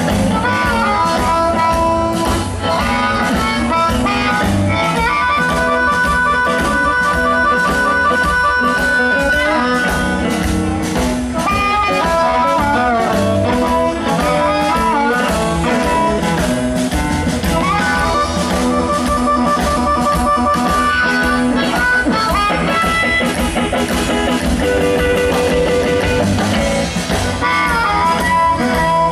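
Live blues band playing without vocals: amplified harmonica, played into a handheld microphone, leads with long warbling held notes over electric guitar, upright bass and drums.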